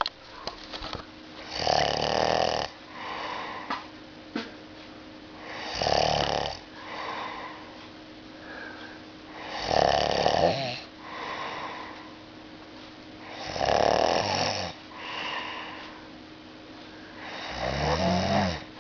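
Snoring: five loud, rattling snores about four seconds apart, each followed about a second later by a softer breath sound.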